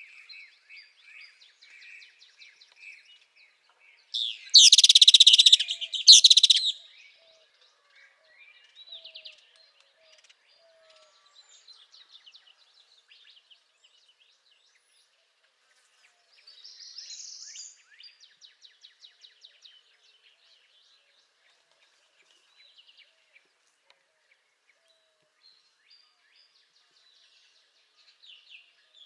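Songbirds singing, the northern parula among them: scattered chirps and short rapid trills, with one much louder, harsh burst in two parts about four seconds in.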